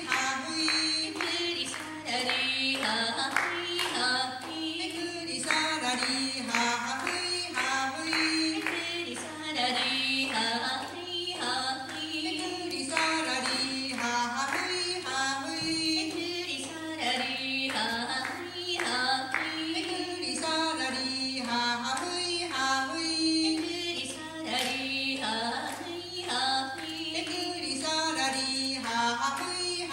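Two women singing a traditional Ainu song without instruments, their voices interweaving in a repeating melody, over a steady beat of hand claps.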